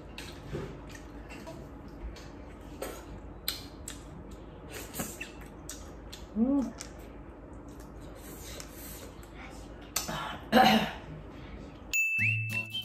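Eating sounds: scattered light clicks of chopsticks and dishes, a short hummed "mm" about six seconds in, and a louder noisy slurp of noodles about ten seconds in. Near the end, background music with a whistled tune begins.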